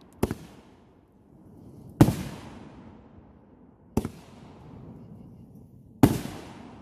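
Fireworks going off: four sharp bangs at an even spacing of about two seconds, each trailing off in an echo.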